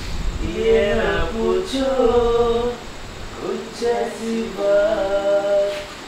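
A voice singing a slow tune without instruments, with long held notes that glide from one pitch to the next.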